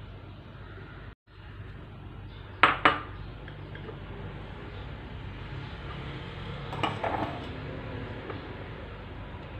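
Bowls clinking as dry ingredients are tipped from small bowls into a large mixing bowl: two sharp knocks close together about three seconds in, and a few lighter clinks around seven seconds.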